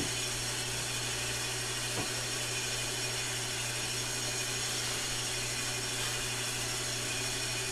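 Small lathe spinning a cast-plastic workpiece while a heat gun blows hot air onto it: a steady motor hum with even fan noise.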